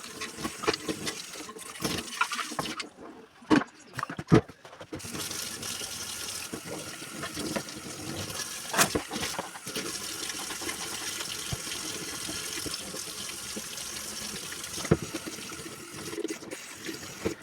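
Water running from a tap into a sink. It stops for a couple of seconds about three seconds in, with a few sharp knocks, then runs again, with occasional clinks.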